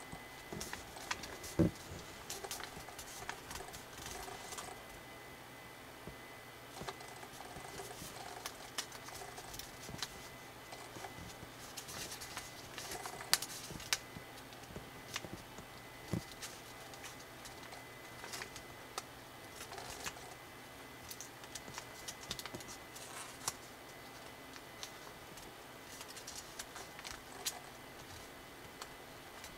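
Origami paper being folded and pressed by hand: irregular small crinkles and crackles of the folds, with a few sharper snaps about a second and a half in and near the middle.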